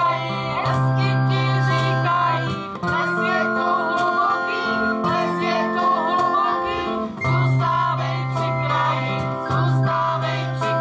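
A live song: a girl and women singing with acoustic guitar and sustained keyboard notes.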